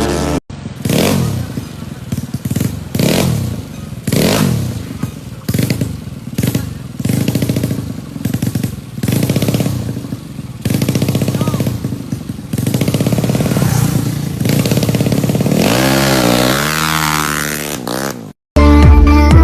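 Drag-race motorcycle engine revved repeatedly in short blips, each one rising and falling in pitch, with one longer rev near the end.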